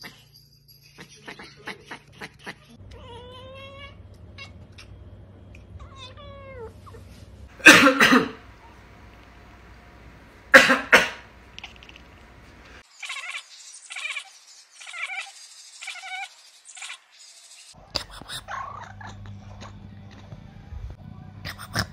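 Domestic cats chattering and chirping in short clipped "ek-ek-ek" calls, some as rising-and-falling chirps, others as a quick run of stuttering calls. Near the middle a person coughs loudly twice, the loudest sounds, and a black cat answers with chattering.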